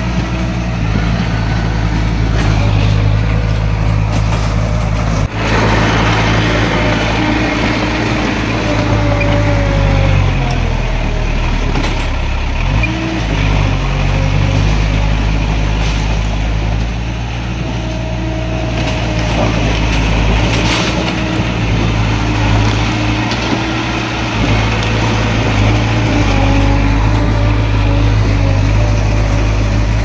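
Heavy-equipment diesel engine running under varying load, its pitch dipping and recovering about a third of the way in and shifting again later.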